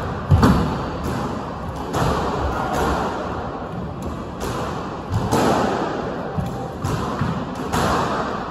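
Squash ball impacts on racket, walls and floor, each knock ringing in the court's echo: a loud hit about half a second in, then scattered thuds roughly once a second.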